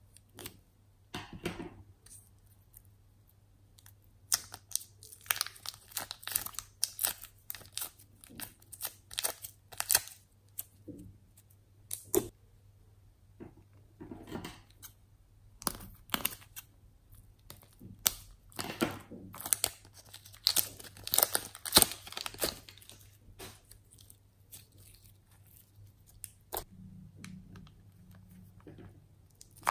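Plastic piping bags filled with glitter slime being handled and squeezed out into a glass dish: irregular runs of crinkling and crackling plastic and sticky slime, with scissors snipping a bag tip near the start.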